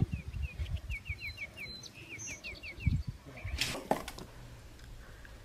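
A bird chirping in the background: a quick run of short, high, falling chirps over a low wind rumble. About three and a half seconds in, a brief rustling burst, after which the sound is much quieter.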